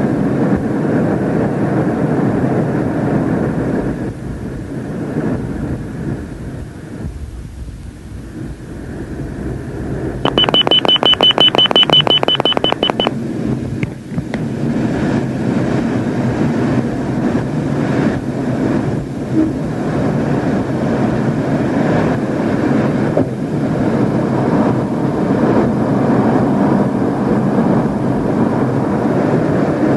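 Steady jet engine and airflow noise inside a MiG-29 fighter's cockpit in flight, easing off for a few seconds and then building again. Around the middle, a rapid high-pitched beeping cockpit warning tone sounds for about three seconds.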